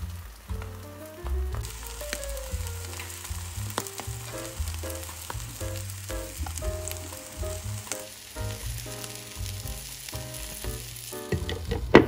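Oil sizzling under a patty of minced chicken hearts and eggs frying in a nonstick pan; the sizzle comes up about two seconds in, over background music. Near the end a glass pan lid is set down with a sharp clank.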